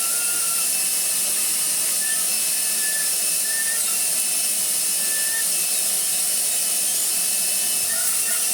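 Titan TTB351 wet and dry vacuum's motor running steadily at full speed, a loud rushing of air through the machine with faint short whistles, on its newly replaced switch.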